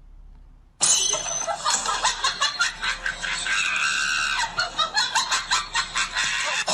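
People laughing hard and shrieking in rapid bursts, starting abruptly about a second in.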